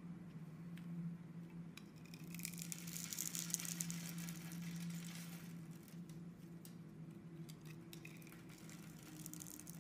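Utility-knife blade shaving a grid-scored bar of soap, the tiny soap cubes snapping off and pattering down in a dense run of fine crackling clicks for about three seconds. This is followed by lighter, scattered scraping clicks near the end, over a steady low hum.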